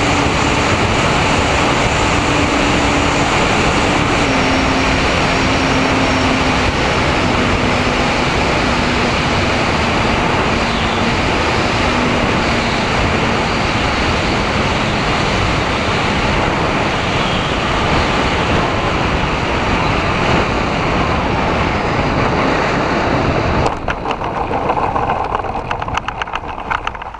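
Onboard sound of an MFD 1800 twin-motor RC plane in flight: a steady rush of air and motor noise, with a faint motor tone stepping down in pitch as it throttles back to land. About 24 seconds in the sound breaks into rapid crackling and rustling as it touches down and slides through grass, then fades out.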